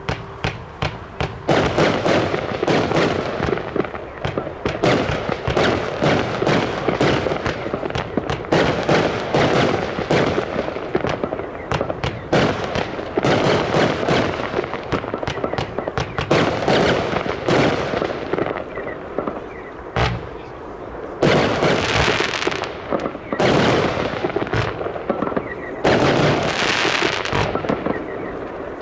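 Lesli Powerhouse 100-shot, 25 mm compound firework cake firing: a few single shots, then a fast, dense run of launches and bursting shells. It eases off briefly about twenty seconds in, then fires on in bunches.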